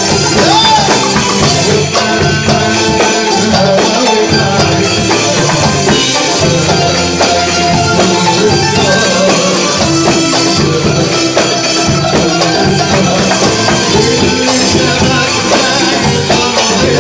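Live Egyptian belly-dance band playing: qanun, keyboards, darbuka and drum kit together, with dense, steady percussion under the melody.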